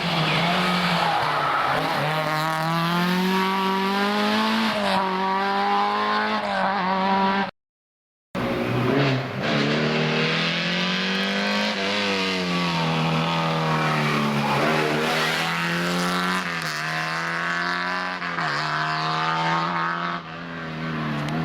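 Historic rally car engine at full throttle on a special stage, revs climbing and dropping again and again through gear changes. The sound cuts out for under a second about a third of the way in, then engine revving of the same kind resumes.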